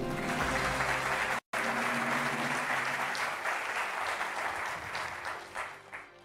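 Studio audience applauding a correct answer, with faint steady show music underneath. The clapping breaks off for a split second about a second and a half in, then thins out to a few last separate claps near the end.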